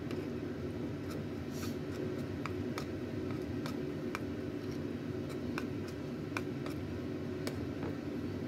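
A metal spoon stirring thick batter in a ceramic bowl, with light clicks now and then as the spoon knocks against the bowl, over a steady low hum.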